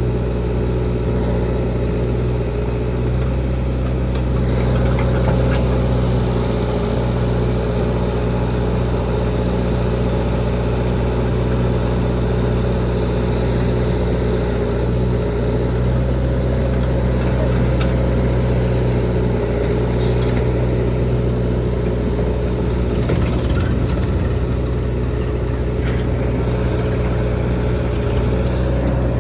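Heavy diesel engine running at a steady, even speed, with a few faint clanks over it.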